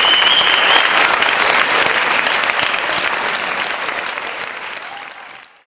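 Audience applauding, with a long high whistle over it at the start. The applause fades out over the last few seconds and stops shortly before the end.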